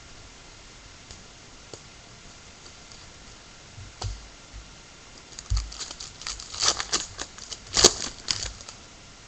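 Baseball card packs and cards being handled: a run of crisp clicks and crinkling rustles in the second half, loudest near the end, over quiet room hiss.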